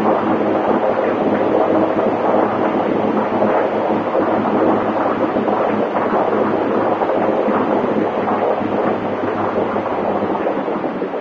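Steady loud rush of wind blown through a turbine test pit past a small spinning wind turbine, with a low steady hum underneath. The rush eases slightly near the end.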